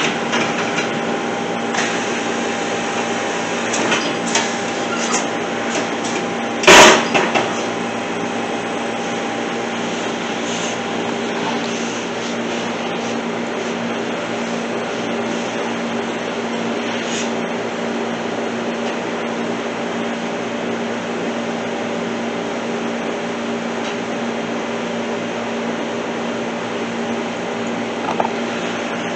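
Steady mechanical hum holding a few fixed tones, with a sharp knock about seven seconds in and a few lighter clicks.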